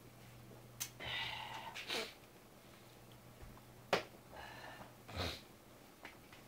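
A few sharp clicks and knocks from handling tools and a phone at a workbench, with short breathy rushes of noise in between, over a steady electrical hum.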